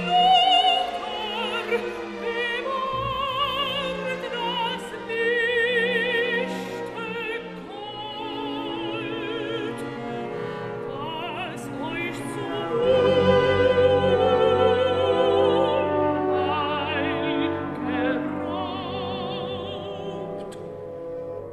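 Background music: operatic singing with orchestral accompaniment, a solo voice singing with a wide vibrato.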